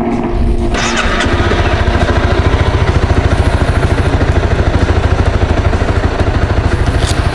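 Honda CBR250R's single-cylinder engine idling with a steady, fast low putter. A couple of light clicks come near the end.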